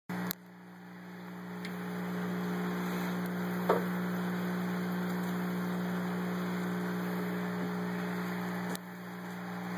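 Steady hum of an aquarium's filtration and air pump with a hiss of bubbling water, and one short knock a little under four seconds in.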